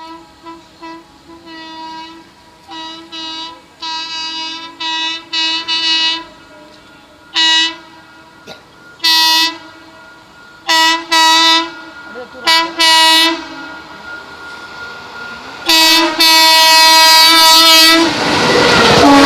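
An electric locomotive's air horn sounds in a rhythmic, trumpet-like pattern on one steady pitch: many quick toots, then several longer blasts and one long blast. Near the end the loud rush of the express passing at speed begins.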